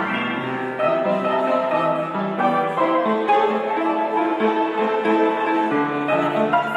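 Piano music: a piece played with held, overlapping notes changing about every half second.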